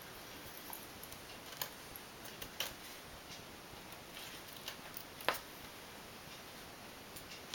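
Small sharp clicks of a jeweler's screwdriver and tiny screws on a MacBook Pro's bottom cover as the screws are driven back in, three clear ticks spread a second or more apart over a faint steady hiss.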